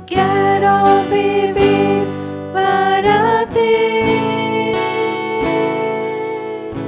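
Voices singing a worship song over a strummed acoustic guitar. The singers hold long notes, sliding up to a higher note about three seconds in and holding it to the end.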